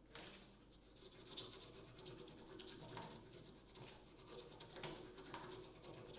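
Faint pencil scratching back and forth across paper laid over a raised glyph, making a rubbing, in irregular strokes.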